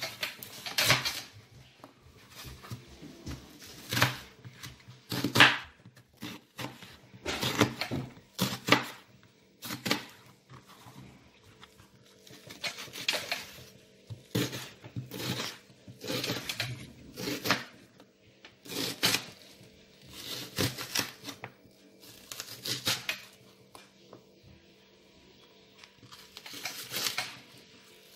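Kitchen knife slicing and dicing a raw onion on a plastic cutting board: crisp cuts through the onion layers and knife taps on the board, coming in irregular clusters with short pauses between.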